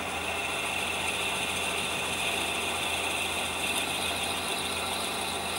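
Wood lathe running steadily while a short quarter-inch twist drill bit, held still in a chuck, bores into the end of the spinning wooden blank.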